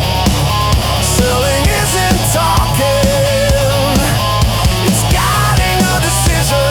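Instrumental hard rock music with a steady driving beat and a heavy low end; a lead line holds a long, wavering note, with a short upward slide about five seconds in.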